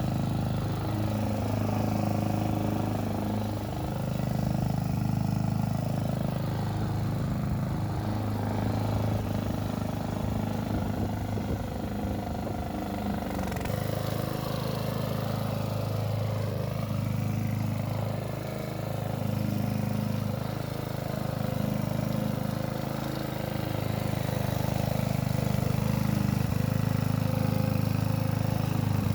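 Hyundai HY145V petrol lawn mower running steadily while mowing, its engine note wavering slightly as it moves.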